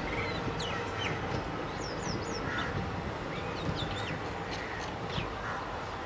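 Indian Railways passenger coaches rolling past at trackside, a steady rumble of wheels on the rails. Birds chirp over it again and again, with short high notes that glide up and down.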